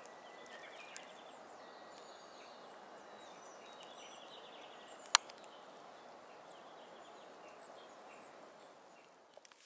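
Faint, steady outdoor background hiss with scattered faint, high bird chirps, and one sharp click about five seconds in.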